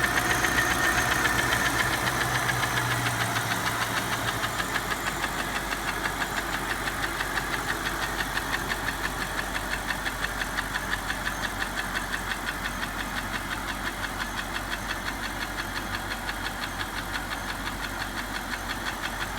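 An engine running steadily with a fast, even pulse, easing slightly in level over the first several seconds.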